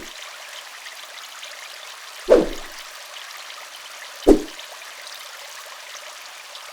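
Two short whoosh transition sound effects about two seconds apart, each a quick swish that falls in pitch and dies away within half a second, over a faint steady hiss.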